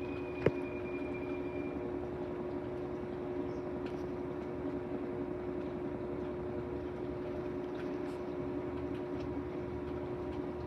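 Whirlpool 22 kg washing machine in its spin cycle, the drum spinning at a steady speed with an even hum and whine. A single sharp click sounds about half a second in.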